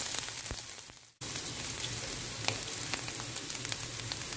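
Chopped garlic, cumin seeds and green chilli sizzling in hot oil in a frying pan: a steady crackling hiss with scattered sharp pops. The sizzle fades and cuts out briefly about a second in, then comes back abruptly.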